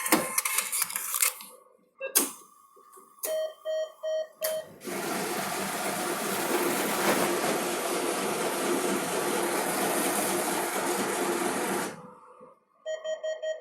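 ATM sounds: about a second of fast mechanical clicking, a single click, then four short keypad beeps. After the beeps comes about seven seconds of steady whirring and rustling from the cash dispenser feeding out banknotes, which stops abruptly.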